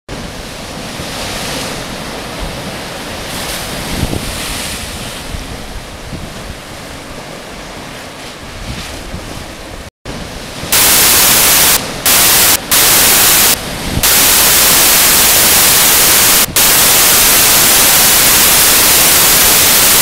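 Sea waves surging and breaking through a blowhole's rock sea-cave arch, the surf rising and falling in swells. About halfway through, wind hits the microphone hard and overloads it: a loud, even hiss drowns the surf, cutting out for moments a few times.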